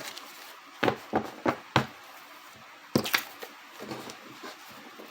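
Tarot cards being handled: four quick sharp taps or slaps about a second in and another a little later, as cards are pulled and laid down.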